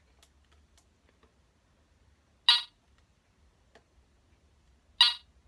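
Teknetics Delta 4000 metal detector giving two short, loud beeps about two and a half seconds apart, with faint handling clicks between. The detector won't stay on, which the owner later puts down to cheap, non-alkaline batteries.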